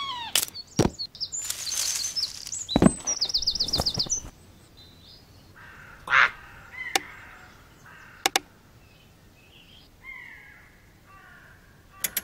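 Birds chirping and calling, with falling whistled notes at the start, a quick run of repeated chirps about three seconds in, and a few sharp clicks in between.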